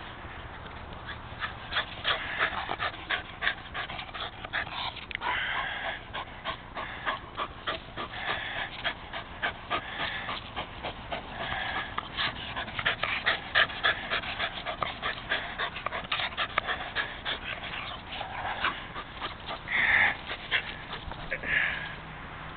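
Rat terrier panting hard, quick short breaths about three or four a second, out of breath from running after a ball. A couple of louder, higher sounds come near the end.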